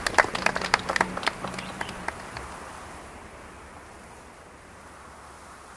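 Guests applauding, the clapping thinning and fading out over the first two or three seconds, leaving a faint hiss.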